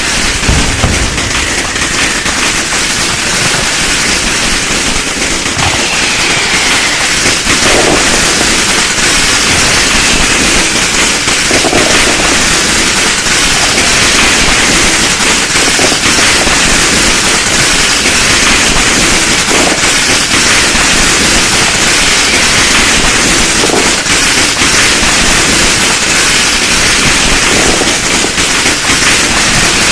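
Many firecrackers going off at once in a dense, unbroken crackling barrage. A few faint falling whistles run through it.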